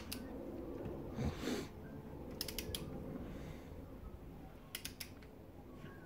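Hand tools working on a cylinder head bolt of a Toyota 5S-FE engine as it is loosened: a short metallic rasp, then clusters of sharp metallic clicks about two and a half seconds in and again near the end, with creaking.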